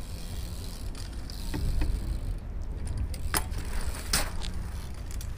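BMX bike rolling over paving: a steady low rumble from the tyres, with a few sharp clicks and rattles from the bike, the clearest about three and four seconds in.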